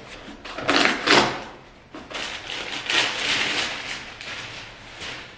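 Cardboard box being handled and opened: a couple of loud scrapes about a second in, then a longer crinkling rustle of tissue paper wrapping.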